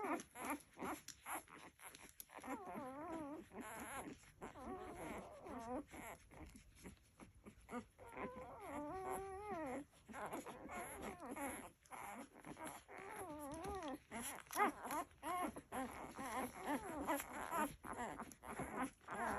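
A litter of Labrador puppies nursing, whimpering and squeaking in many overlapping, wavering high cries, with small clicks between them.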